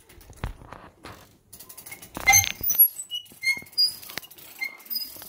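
Weight-driven Gamewell fire-alarm apparatus set going: irregular mechanical clicks and knocks with many short, high squeaks as its mechanism runs, with a louder clatter about two seconds in.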